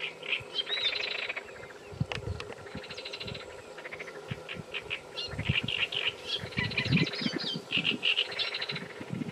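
Frogs croaking in repeated rapid rattling trains, each under a second long, mixed with high chirping calls. A few low thumps come about two seconds in and again around five to seven seconds in.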